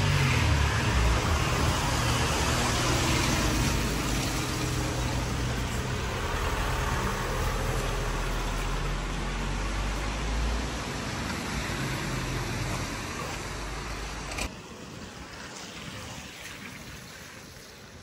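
Road traffic on wet streets: tyres hissing on wet pavement with a low engine hum, loudest at the start and easing off. About fourteen seconds in it cuts to a much quieter outdoor background.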